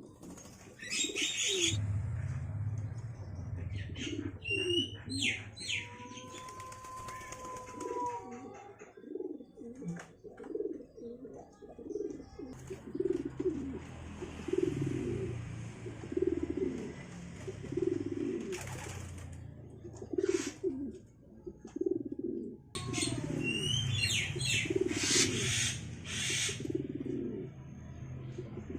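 Domestic pigeons cooing over and over, about once a second, mixed with bursts of high chirps and whistles from Javan mynas.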